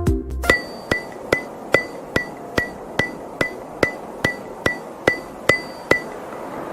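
A short stretch of music ends about half a second in. Then come evenly spaced sharp ticks, about two and a half a second, each with a brief ringing tone, over a faint hiss; they stop a little after six seconds.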